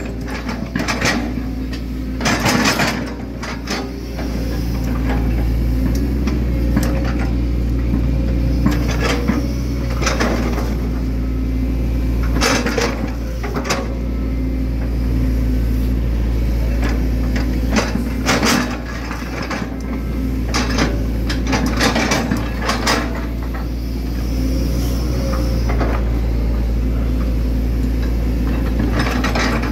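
Hitachi Zaxis 110 excavator's diesel engine running steadily as it works the boom and bucket, with frequent sharp clanks and knocks from the working machine as the bucket digs and sets down mud.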